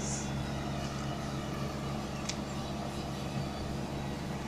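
Diesel engine of a truck-mounted mobile crane running at a steady speed, a low even hum.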